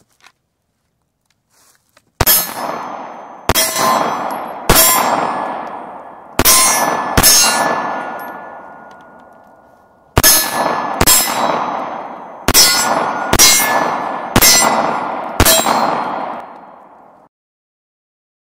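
Pistol shots at steel targets, each followed by the ringing of the struck steel plate: eleven shots in two strings, five, then a pause of about three seconds, then six. The last ring cuts off suddenly.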